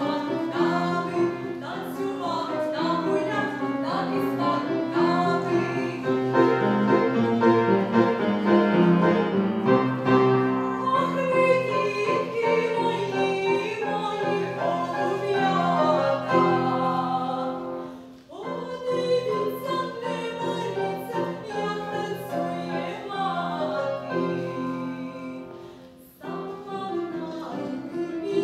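A woman singing solo with upright piano accompaniment. The music drops briefly twice, at phrase breaks about two-thirds of the way in and again near the end.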